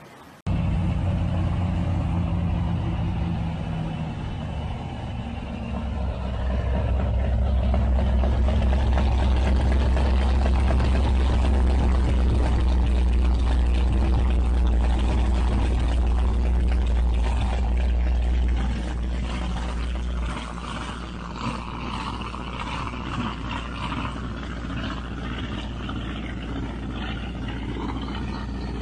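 Motorboat engine running with a steady low rumble, louder from about six seconds in and dropping back near twenty seconds, with rushing noise over it.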